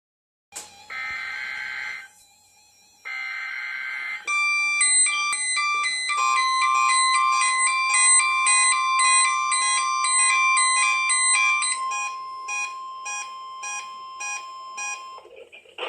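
NOAA Weather Radio warning alarm test: a single steady tone near 1 kHz (the 1050 Hz alarm tone) starts about six seconds in and holds for about nine seconds. It is preceded by two short buzzy bursts and runs under a busy electronic tune of repeating notes that turns into short pulses near the end.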